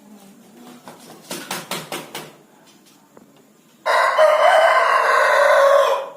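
A rooster crows once: a loud, pitched call about two seconds long that starts sharply about four seconds in. Before it, around a second in, comes a quick run of about half a dozen sharp beats.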